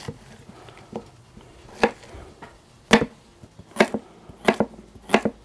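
Chef's knife chopping vegetables on a bamboo cutting board: single sharp knocks of the blade against the board, roughly one a second, the first one faint.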